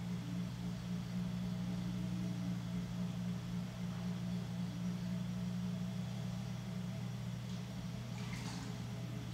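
Electric potter's wheel running with a steady motor hum while a large clay jar spins on it. Near the end there is some light watery splashing as a hand dips into the throwing-water bowl.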